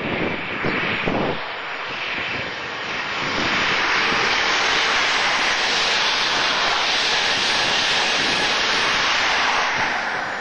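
Intercity express passenger train passing at speed: a rushing noise of wheels on rails and air that builds as the coaches come alongside, holds steady for several seconds and starts to fade near the end.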